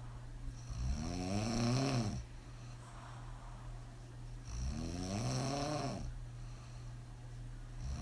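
A woman snoring hard on her back with her mouth open, after several alcoholic drinks. There are two long snores, about a second in and again about four and a half seconds in, each rising then falling in pitch, with quieter breathing between them.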